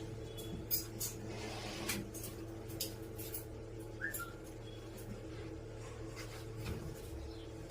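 A steady low hum runs throughout, with scattered short clicks and a brief rustle about a second and a half in.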